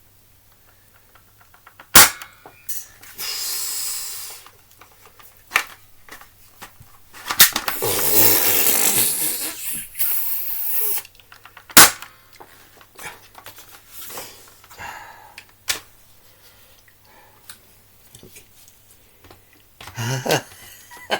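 Spring-powered BB rifle fired twice, about ten seconds apart: two sharp, loud cracks. Between and after them come stretches of rustling noise and small handling clicks and knocks.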